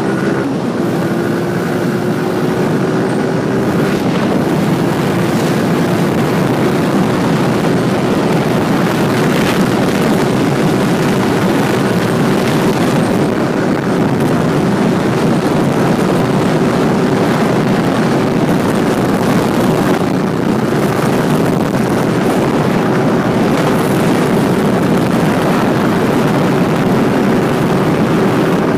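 Motorcycle engine running steadily at cruising speed, heard over heavy rushing noise from the ride. Its note climbs slightly over the first few seconds, then holds steady.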